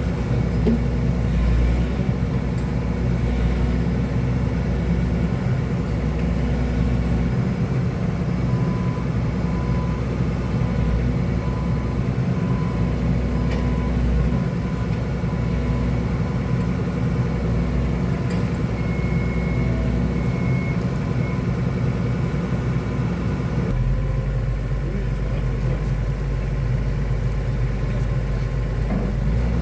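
Excavator's diesel engine running steadily, its low tone changing a few times as the machine works.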